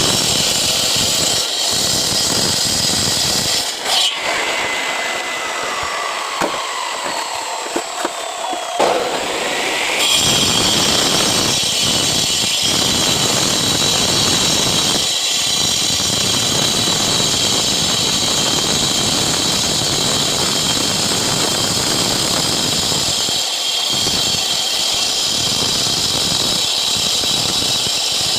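Power cutter cutting concrete paving blocks, its motor and blade running with a steady high whine over gritty cutting noise. A few seconds in the pitch drops and slides lower, then rises back up about ten seconds in and runs steadily again.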